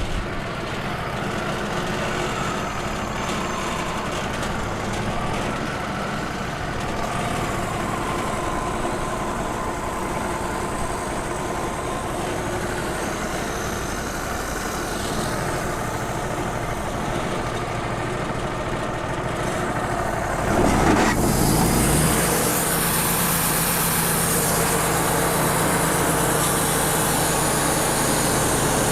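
Wood-Mizer LT35 band sawmill's engine running steadily, then revving up about two-thirds of the way through and running louder and steadier, with a hiss from the band blade.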